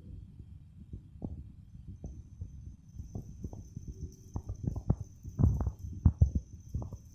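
Irregular soft thumps and taps, coming thicker in the second half, as a kitten rolls, pounces and bats at a feather wand toy on a tiled floor.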